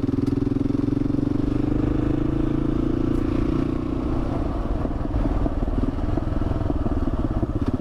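Kawasaki KLR650's single-cylinder engine running steadily under way, its note easing a little about halfway through.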